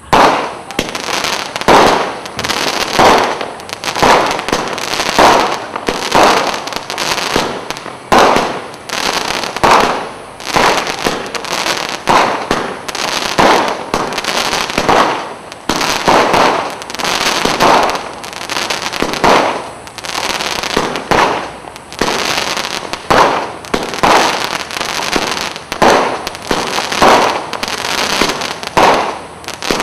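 Astra Deadly Scorpions 50-shot fireworks cake firing continuously, with a shot and burst about once a second. Between the bursts the crackling stars give off a dense crackle.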